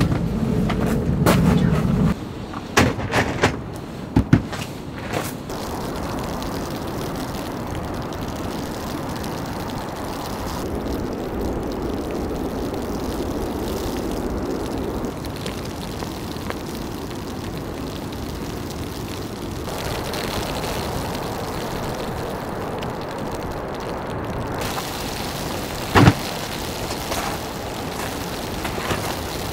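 Steady rain, an even hiss throughout. A few knocks and clatters come in the first few seconds, and one sharp knock near the end.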